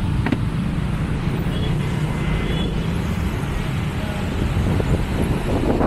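Steady rumble of road traffic in the street, with a few faint knocks.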